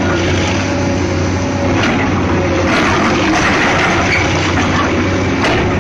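Excavator's diesel engine running steadily with a low hum, with a few brief knocks.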